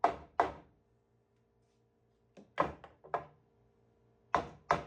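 Mallet or hammer tapping through a wood block on the edge of a freshly glued, biscuit-joined panel, driving the boards together. The sharp knocks come in three short runs of a few taps each, about three or four a second, with pauses between.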